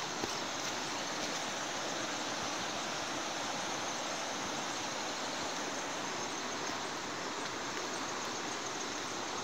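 Steady rush of running water, like a mountain stream, an even hiss with no breaks or changes.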